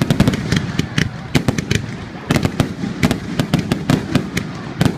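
Fireworks going off: a rapid, irregular run of sharp bangs and crackles, several a second, over a steady low rumble.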